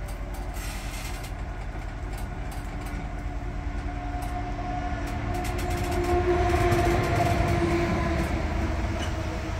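Pickup truck engine running steadily as it backs a travel trailer, with a steady whine over the low rumble. It grows louder about halfway through, then eases slightly near the end.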